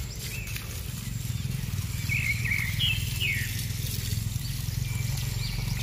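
Water from a hose running steadily onto the soil of a potted bonsai, washing the packed growing medium away from its roots, with a low rushing sound. A few short bird chirps come around the middle.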